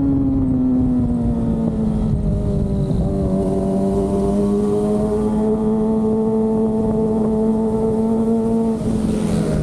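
Kawasaki ZX-25R's 249 cc inline-four engine running at high revs on the move. The engine note eases down over the first couple of seconds, holds steady, then dips and settles at a lower pitch near the end.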